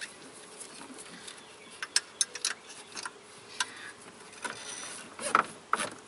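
Scattered light clicks and knocks of hands and tools working among engine parts while the serpentine belt is being taken off. A quick cluster comes about two seconds in and the loudest pair near the end.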